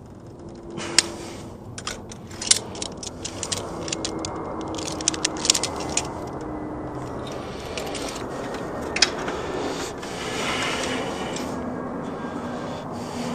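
Sharp metal clicks and jingling from pliers and a coax F-connector being handled with gloved hands, a dozen or so at irregular intervals, over steady rustling as the cable is rubbed and bent.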